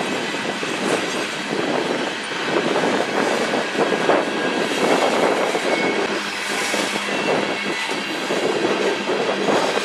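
Freight train of covered hopper cars rolling past close by: a steady rumble of steel wheels on the rails with occasional clicks.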